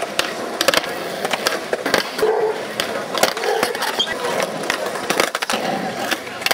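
Skateboards rolling on concrete, with repeated sharp clacks of boards popping and landing as tricks are tried.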